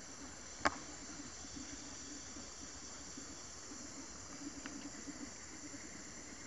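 Tropical forest ambience: steady high-pitched insect hiss, with one sharp click just under a second in.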